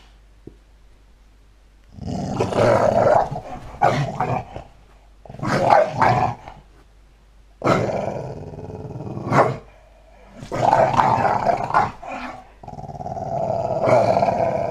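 Dog growling with a tennis ball held in its mouth, in about six bouts of a second or so each, starting about two seconds in.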